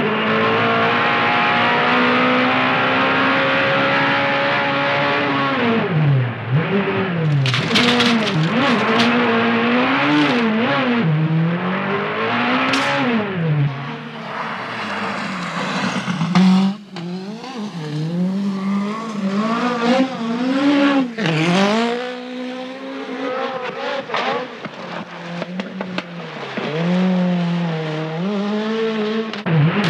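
Peugeot 405 T16 hill-climb car's turbocharged four-cylinder engine at full throttle on gravel. The revs are held steady for the first few seconds, then drop and climb again and again as the driver lifts, brakes and accelerates through the corners. A few sharp cracks come about 7 to 10 seconds in, with tyres scrabbling on the loose surface.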